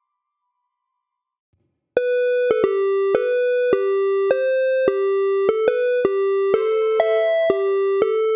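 Silence for about two seconds, then a loud retro chiptune-style synth melody starts: a buzzy electronic lead stepping between a few notes about twice a second, with a click at the start of each note.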